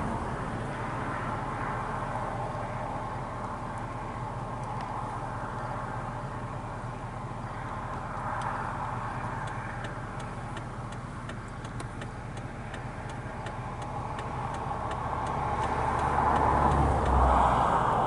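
Road vehicles passing, the sound swelling about halfway through and loudest near the end, over a steady low engine hum. A run of faint ticks comes in the middle.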